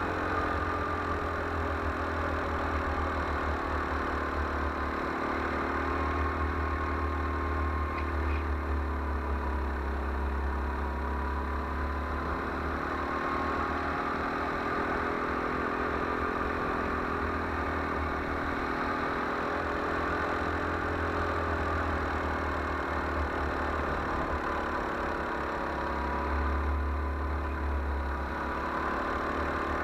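Go-kart engine heard close up from the moving kart, running continuously around a track. Its pitch dips and climbs again several times as the kart slows for corners and accelerates out, over a steady deep rumble.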